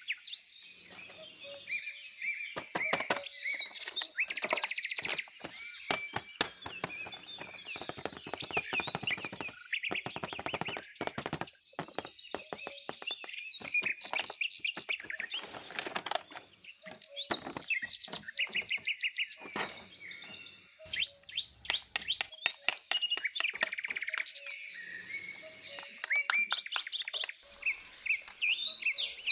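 Small birds chirping in short, repeated calls, with many sharp clicks and knocks throughout.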